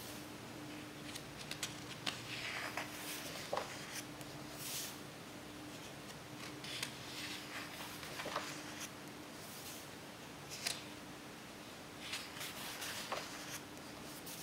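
Pages of a large photo book being turned by hand: paper rustling and flapping in short bursts every second or so, with light clicks and hands brushing the paper, over a faint steady hum.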